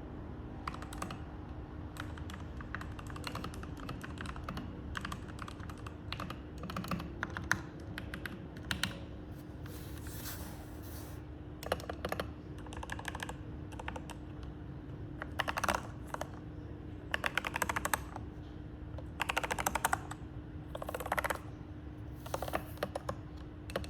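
Typing on a custom mechanical keyboard with Gateron Milky Yellow linear switches lubed with Krytox 205g0: irregular runs of keystrokes with short pauses, the fastest dense runs in the second half. A faint steady hum runs underneath.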